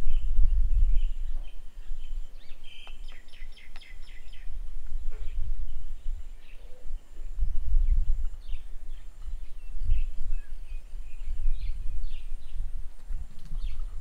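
Wind buffeting the microphone in gusts, with small birds chirping around it, including a quick run of about eight chirps about three seconds in.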